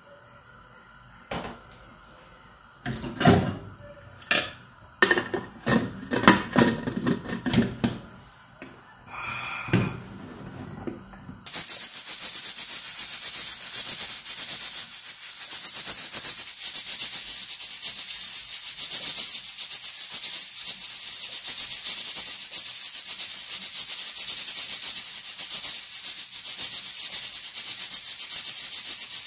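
A scattering of sharp knocks and clicks, then a loud, steady hiss that starts abruptly about eleven seconds in and keeps on.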